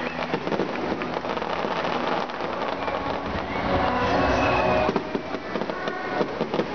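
Aerial firework shells bursting overhead with a dense crackle of many small pops. It grows louder for a second or so about four seconds in.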